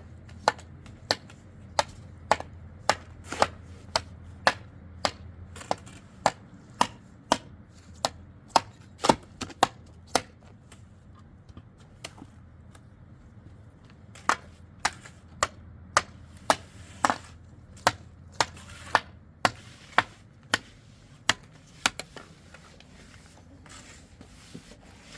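Repeated sharp chopping strikes, just under two a second, stopping for a few seconds midway and then carrying on at the same pace.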